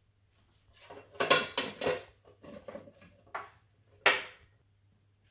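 A vessel and utensil clattering and knocking against the wet grinder's drum as dal is tipped in, in a run of knocks that ends with one sharp knock about four seconds in.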